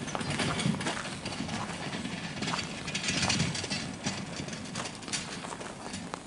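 Footsteps crunching and scraping on icy, grit-strewn snow, coming at an uneven pace.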